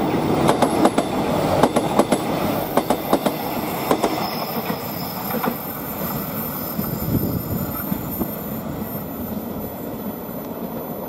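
Prameks diesel multiple unit passing close by, its wheels clacking over the rail joints in quick, sharp clicks for the first few seconds, then a steadier rumble that slowly fades.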